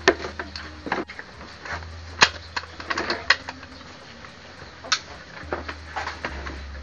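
Irregular sharp clicks and taps of hand tools against metal parts during mechanical work, over a low steady hum.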